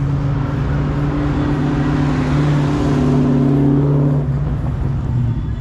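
A car's engine running as it drives past close by, loudest about three seconds in and fading near the end.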